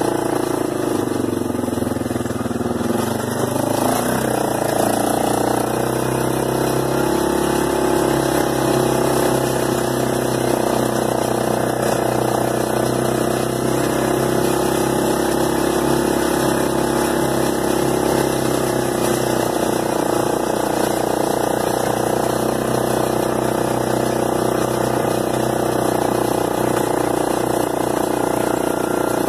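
Arctic Cat 375 4x4 ATV's single-cylinder four-stroke engine running steadily as the quad is ridden along.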